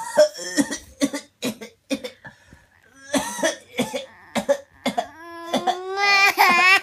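A man coughing in a long string of short, sharp coughs. About five seconds in, a baby starts crying, a rising wail that is held and grows louder.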